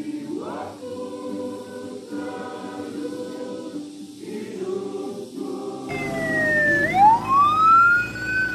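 A choir singing with long held notes; about six seconds in it gives way to an ambulance siren wailing, sweeping down and then up in pitch, louder than the singing.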